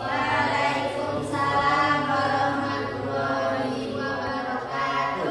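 A group of voices singing together in chorus, with long held notes over a steady low tone; it starts abruptly.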